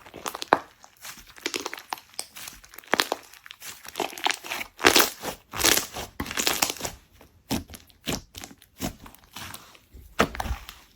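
Slime being squeezed and played with by hand, giving irregular crinkly crackles and pops.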